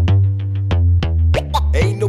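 Background music: an electronic track with a steady beat over a sustained bass line, with sliding synth-like notes coming in near the end.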